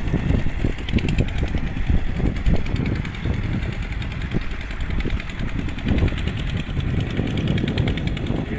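Engine of a two-wheel walk-behind tractor running steadily in a rapid even chug, under an uneven low rumble of wind on the microphone.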